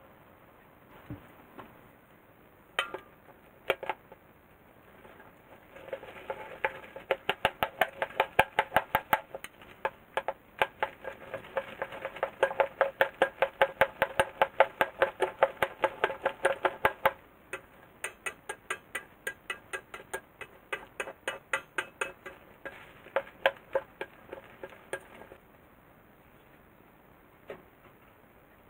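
Chopsticks stirring natto with chopped green onion in a stainless steel bowl, clicking against the bowl about three times a second in two long spells.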